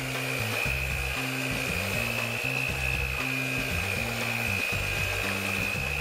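Electric hand mixer running at a steady speed with a high whine, its beaters churning thick banana cake batter in a steel bowl, over background music.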